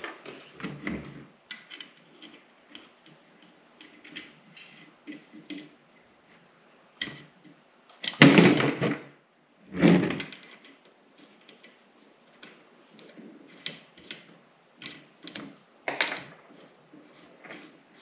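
Metal hydraulic hose fittings and a single-point connector block handled on a tabletop: scattered clicks and clinks, with a louder clatter about eight seconds in and a thump about two seconds later.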